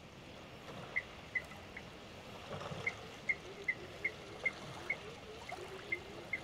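Quiet river ambience: a string of short, high chirps about every half second over a soft wash of water, with a lower wavering call joining about two and a half seconds in.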